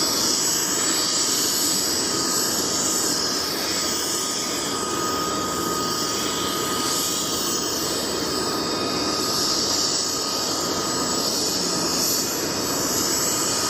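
CH-47 Chinook's auxiliary power unit, a small gas turbine, running steadily with its main engines shut down, giving a constant turbine rush and whine while the rotors coast down. A thin high whine in the sound drops away near the end.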